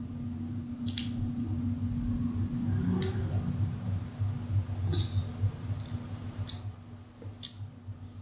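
Peanut shells being cracked and peeled by hand, giving about six sharp, irregularly spaced crackling clicks over a steady low hum.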